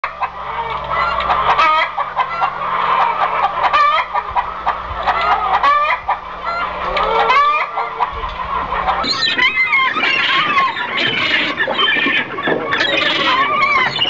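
Farmyard fowl calling, a dense run of short repeated calls that gets busier and higher-pitched after about nine seconds, over a low steady hum that drops out before that.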